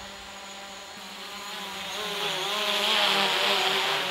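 DJI Mavic Pro quadcopter flying overhead: a steady buzzing propeller whine with a slightly wavering pitch, growing louder about two seconds in.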